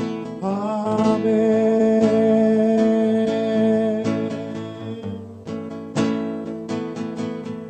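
Acoustic guitar playing a slow worship song between sung lines, with sustained chords and a few sharp strums in the second half.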